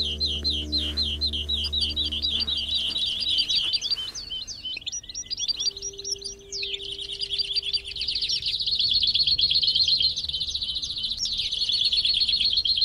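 Finches singing a fast, chattering song, which turns into a near-continuous rapid trill about halfway through. Background music fades out during the first few seconds.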